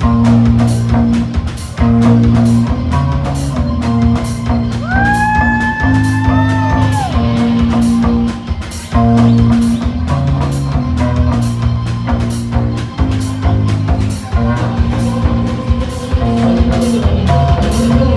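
Loud live rock band playing: distorted electric guitar over a drum kit with steady cymbal strokes and repeated low notes. About five seconds in, a held high note glides up, sustains and falls away.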